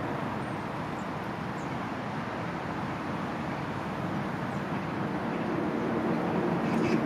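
Steady hum of city traffic, growing a little louder near the end as a low engine note joins it.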